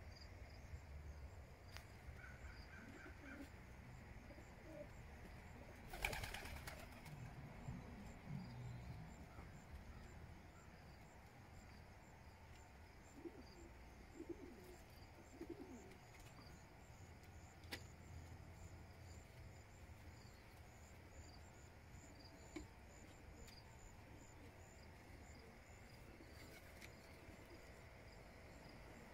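Homing pigeons cooing softly a few times, with a brief rustling burst about six seconds in. Faint, regular high chirping runs underneath.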